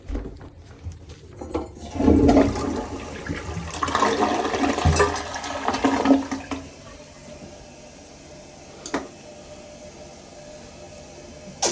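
Toilet flushing: a loud rush of water for about five seconds that then dies down to a steady low hiss, with a couple of brief clicks near the end.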